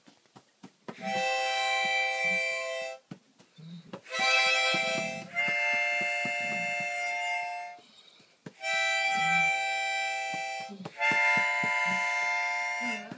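Harmonica playing long held chords, in about four phrases with short pauses between them, changing chord partway through some phrases.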